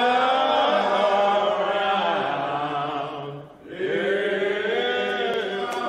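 Men's voices singing a slow, drawn-out hymn in long held notes, breaking off briefly a little past halfway before the next line begins.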